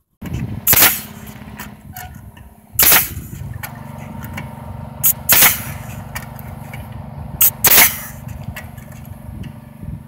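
Pneumatic coil nail gun firing nails through roof tiles: about half a dozen sharp shots, several in quick pairs, over a steady low hum.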